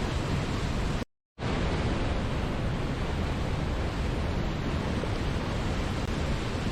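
Waterfall rushing steadily, an even hiss heaviest in the low rumble. About a second in it cuts to silence for about a quarter of a second, then returns at the same level.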